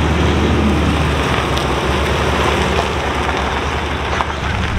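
Pontiac Firebird engine running with a low, steady rumble as the car drives past on gravel, over a gritty hiss of tyres on the gravel.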